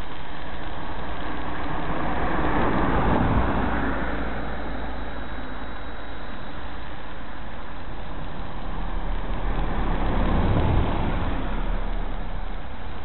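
Steady rushing noise with two swells, about three and ten seconds in, each building and fading over a couple of seconds like a road vehicle passing by.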